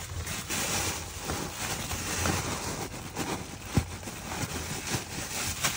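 Plastic grocery bags crinkling and rustling as they are pushed by hand into a battery compartment, with a few sharper ticks, over the steady rush of a camper furnace running.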